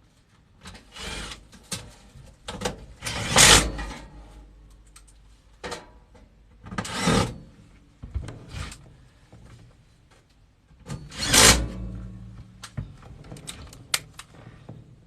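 Furnace parts being handled and fitted back into place: a series of scraping, rustling bursts and sharp clicks, loudest about three and a half and eleven seconds in.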